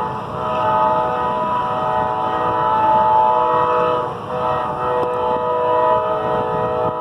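Amtrak passenger locomotive's multi-chime air horn sounding long blasts, with brief breaks just after the start and about four seconds in, over the steady rumble of the train.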